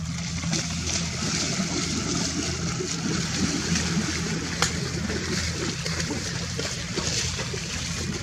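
Steady jet-engine noise from airliners running on the apron and taxiway, with wind on the microphone and a low steady hum underneath. A single sharp click about halfway through.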